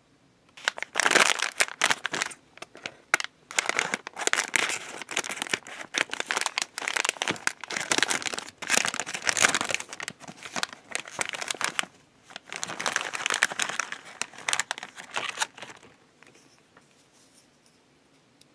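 Plastic wrapper of a Digimon Seal Chocolate Snack being crinkled and pulled open by hand, in dense crackling bursts with short pauses, stopping near the end.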